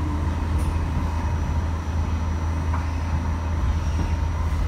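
Steady running rumble of an R68A subway car heard from inside the car as it pulls into a station, with faint steady whines above the rumble.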